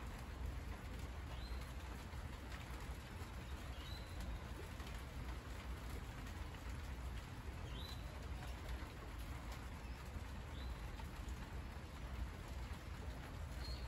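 Steady rain falling on broad monstera leaves, with a bird giving a short, high call about every two to three seconds.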